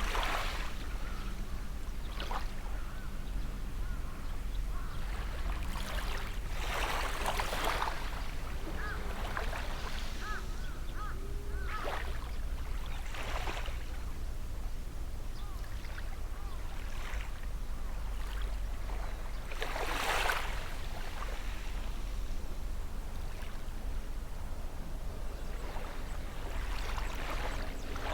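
Small waves breaking and washing on the shore every few seconds, over a steady low hum from a distant boat engine. A few short bird calls sound in the middle.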